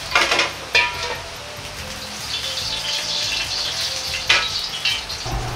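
Steel ladle knocking against a wok three times, each strike ringing briefly. Between the strikes, the film of hot oil left in the wok sizzles.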